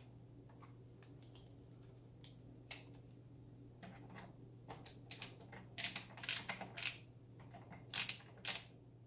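Small irregular clicks and ticks of a T20 driver backing a bolt out of a OneWheel Pint's rail and the bolt being handled. They are sparse at first and come thick and fast over the last few seconds.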